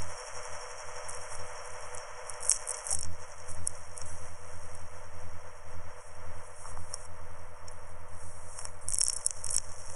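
Background music with short high clicks and rattles; a low sustained part comes in about three seconds in.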